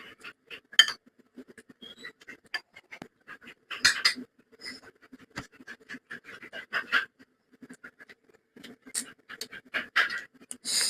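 Close-up chewing and lip-smacking while eating rice with dal and palak gosht: a steady run of wet smacks and clicks, with louder bursts about four seconds in and again near the end.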